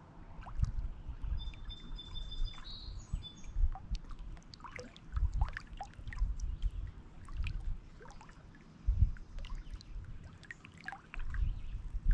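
Small lake waves lapping and splashing against shoreline rocks in irregular surges, with splashy crackles on top. A songbird sings a few high, steady notes for about two seconds near the start.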